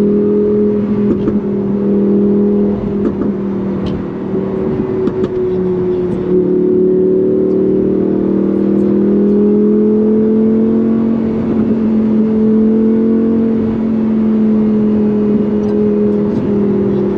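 Lamborghini Huracán Performante Spyder's V10 engine running at fairly steady revs, its pitch holding nearly level with only small rises and falls. A few sharp ticks sound in the first five seconds.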